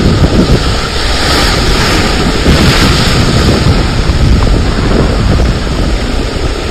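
Breaking surf with heavy wind buffeting the microphone: a loud, continuous rush of water with a rumbling low end.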